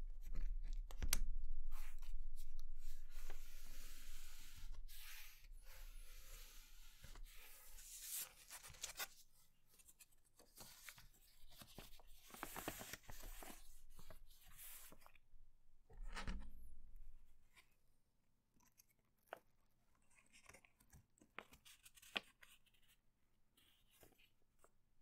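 Paper rustling and crinkling as a sheet of grid paper is folded and creased by hand into a paper airplane. The rustling is dense for the first several seconds and comes again in short spells around the middle, then gives way to scattered light clicks and rubs in the last third.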